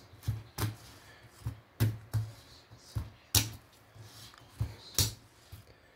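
Fingerboard being ridden and popped on a cloth gaming mouse pad: a run of irregular sharp clicks and soft taps as the little board slaps and lands, a short lull, then a couple more near the end.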